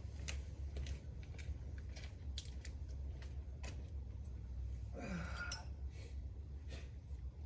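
Scattered light clicks and clatter of hand tools being picked through, with a short falling squeak about five seconds in, over a steady low hum.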